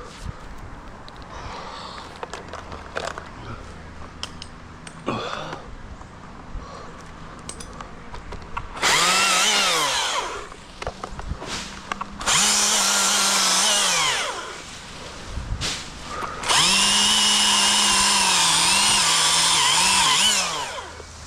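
Husqvarna chainsaw throttled up to full revs three times, in bursts of about one and a half, two and four seconds, each winding down as the throttle is released; the last dips and picks up a few times before it stops. Before the first burst there are only quieter rustling and clicking handling sounds.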